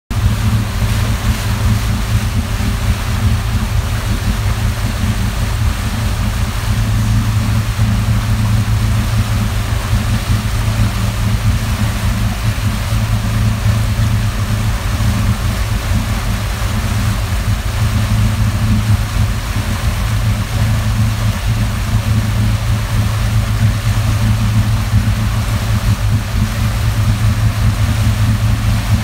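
Motorboat engine running steadily underway, a constant low hum over a wash of water noise.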